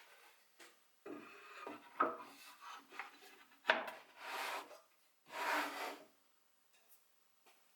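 Three long strokes of a hand tool scraping across wood, each about a second long, with smaller scrapes in between.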